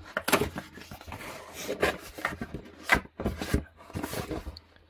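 Cardboard mailer being handled and torn open: irregular rustling and scraping of cardboard, with a series of short, sharp rips and taps.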